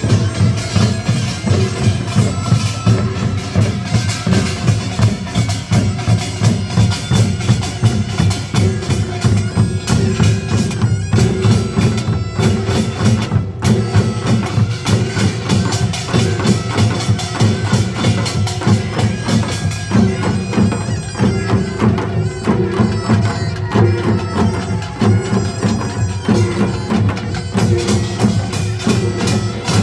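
Gyeongsang-do nongak ensemble playing: a dense percussion band of gongs and drums keeps up a fast, driving beat of about two or three strokes a second, under a held, reedy wind melody.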